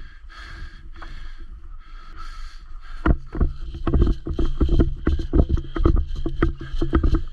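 Irregular thumps and knocks, several a second, beginning about three seconds in: a player running, with footfalls and gear jostling against the body-worn camera.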